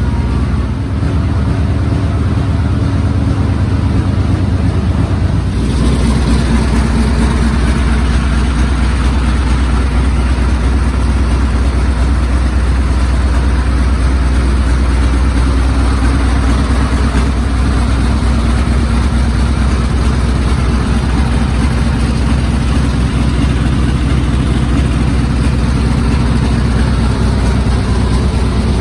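Engine of a 1942 M3A1 Stuart light tank running; about five seconds in it picks up to a faster, louder run and then holds steady.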